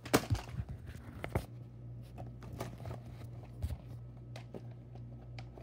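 Handling noises: a couple of louder scuffs and rustles in the first second or so, then scattered light clicks and taps, over a steady low hum.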